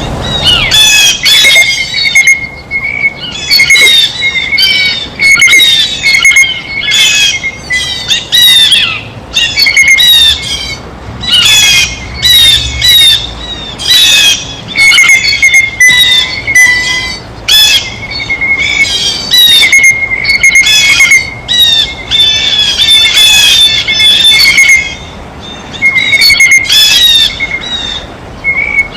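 Blue jays calling over and over, a dense run of harsh, loud calls following each other with only brief gaps.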